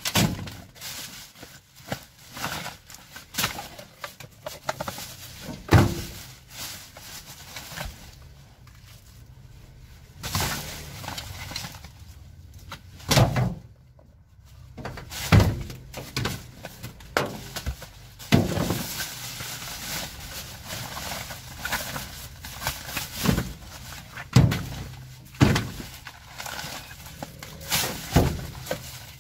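Black plastic rubbish bags rustling and crinkling, with irregular knocks and thuds as rubbish is shifted around by hand.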